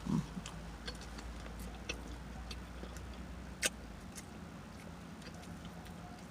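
Close-miked chewing and lip smacking on a sandwich: soft, scattered wet clicks, with one sharper click a little past halfway. A brief low hum from the eater comes right at the start.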